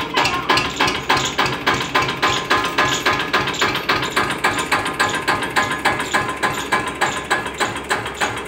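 Antique 1973 Eicher tractor's diesel engine idling with a steady knocking beat, about four to five beats a second.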